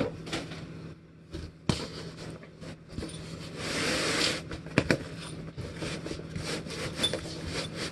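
Cardboard box and packing being handled as a padded gig bag is pulled out of a shipping box: scattered knocks and rustles, and a longer scraping rub about four seconds in. A steady low hum runs underneath.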